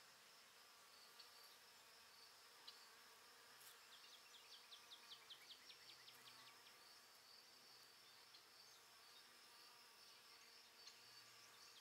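Near silence with faint insects trilling: a steady high buzz, with a run of quick ticks, about five a second, in the middle.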